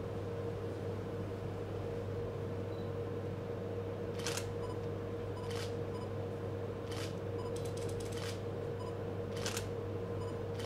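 Camera shutters clicking, starting about four seconds in: single shots roughly a second apart and a quick run of clicks near the middle, over a steady hum.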